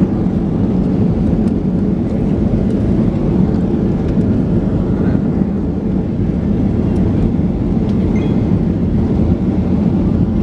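Steady low rumble inside the cabin of a Boeing 737-900ER rolling slowly along the taxiway after landing: engine noise and the landing gear running over the pavement.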